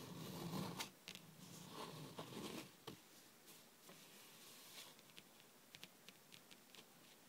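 Long painted fingernails tapping softly on a hard tabletop. At first the hands brush and rub on the surface with a few sharper taps, then from about three seconds in come light, scattered nail taps, a few a second.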